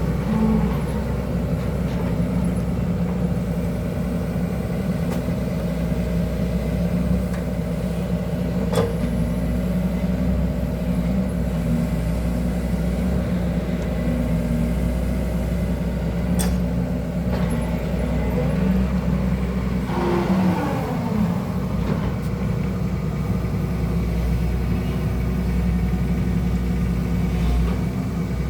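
Excavator's diesel engine running steadily, with a drone whose pitch bends briefly about two-thirds of the way through. Two sharp clicks come about nine and sixteen seconds in.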